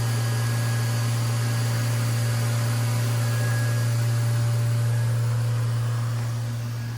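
Hurco VMX-42Di CNC vertical machining centre running under power: a steady low hum with a hiss over it, easing off near the end.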